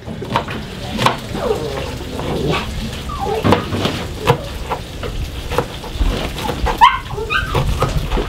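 A few short animal cries, about three seconds in and again near the end, over repeated light knocks and a steady noisy background.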